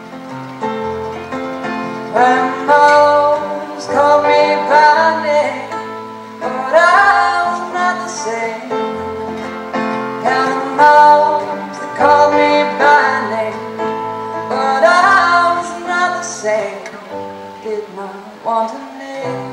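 A woman singing a slow folk song live into a microphone, in phrases a couple of seconds long with vibrato, over steady instrumental accompaniment.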